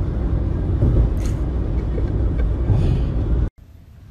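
Steady low rumble of road and engine noise inside a moving car's cabin. It cuts off abruptly about three and a half seconds in.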